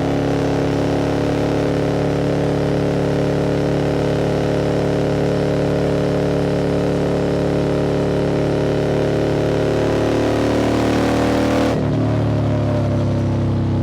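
QJ Motors SVT650X's V-twin engine, through an Arrow exhaust, running steadily under way with wind rush over the rider. Its pitch eases down slowly. Near the end the wind hiss drops away suddenly and the engine note shifts lower as the throttle comes off.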